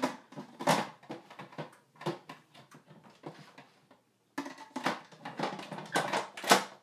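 Metal lid of a 10-quart Elite electric pressure cooker being set on the pot and twisted to lock, giving a run of scrapes and clicks, busiest in the last two seconds or so.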